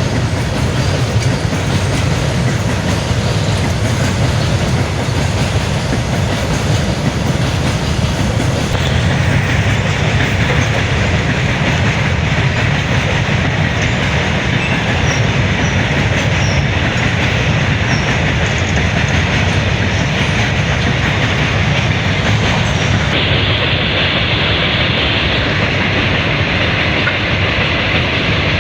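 A train passing close by: the steady, loud running noise of its wagons and wheels on the rails, continuing without a break.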